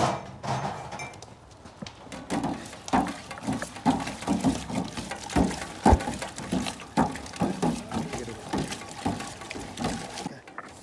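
A long metal ladle stirring liquid in a large cut-open square tin, knocking and scraping against the tin's walls about twice a second.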